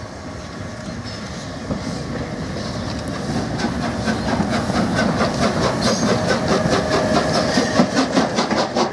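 LNER Peppercorn A1 class three-cylinder steam locomotive 60163 Tornado approaching and passing close by with its train, a rapid, regular beat of exhaust and wheel noise growing steadily louder as it nears.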